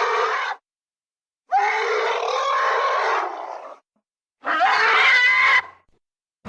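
Edited monster roar sound effects for the kaiju Skar King: separate pitched roars of one to two seconds each, each opening on a rising cry, with short silences between them. A roar fades out just after the start and another begins at the very end.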